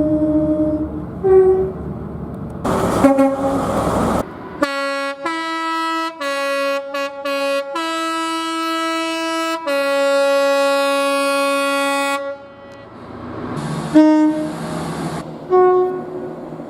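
A run of train horn blasts from several clips: a short horn tone and a brief toot, then a multi-note chime horn sounding several short blasts followed by two long ones, then more short blasts over train rumble.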